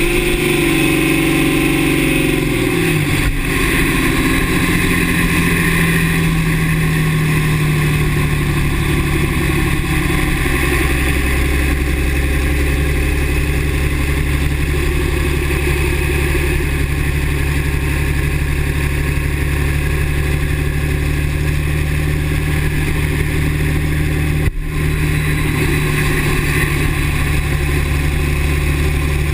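Dodge 6.7 Cummins turbo-diesel engine running steadily, its pitch dropping and settling lower about three seconds in, with a brief dropout near the end.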